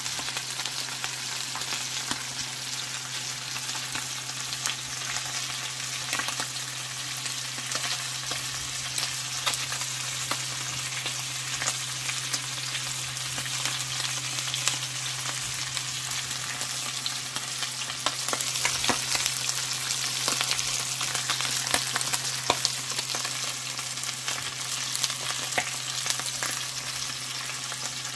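Whole mackerel scad (galunggong) pan-frying in hot oil in a stainless steel pot: steady sizzling, peppered with sharp spattering pops that come thicker about two-thirds of the way through. A low steady hum sits underneath.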